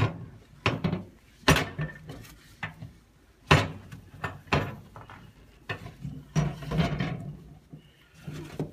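Scattered knocks and clunks, about half a dozen at irregular intervals, with quieter rubbing between, as the inside of a microwave is wiped down with a cloth.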